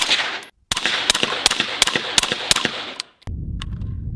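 Rapid shots from a 5.56 Daniel Defense MK18 carbine fitted with a SureFire RC2 suppressor, about five a second, in two strings with a brief break about half a second in. The shooting stops near the end, leaving a low rumble and a couple of faint clicks.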